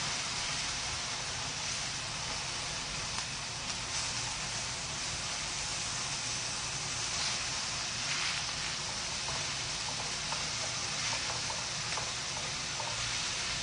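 Pork and mushrooms sizzling in a frying pan, a steady hiss, with a few light taps of chopsticks turning the food near the end.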